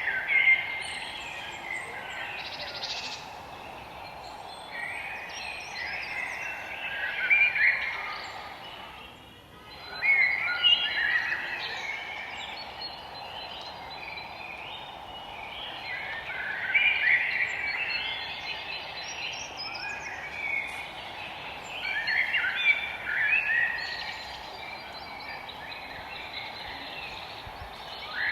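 Forest birds singing, with bursts of chirping song every few seconds over a steady background hiss.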